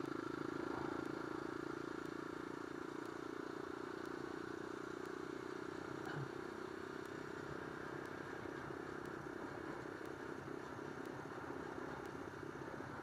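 Supermoto motorcycle engine running steadily while being ridden along the road. Its note eases off a little in the second half.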